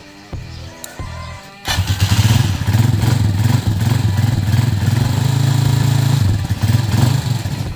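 Rusi motorcycle engine starting with a sudden burst about two seconds in, then idling steadily and cutting out near the end. Guitar music plays over the first two seconds.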